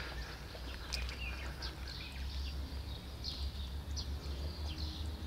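Small birds chirping on and off in short, high, falling notes over a steady low rumble, with one sharp click about a second in.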